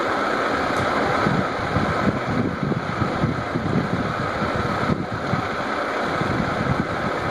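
Steady rushing noise of air buffeting the microphone, with a few faint knocks of a kitchen knife cutting pineapple against a wooden chopping board.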